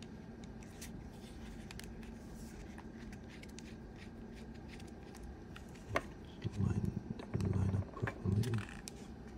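Faint ticks and scrapes of a small precision screwdriver working against a resin 3D-printed battery shell, with a sharper click about six seconds in. Near the end, a low mumbled voice for about two seconds.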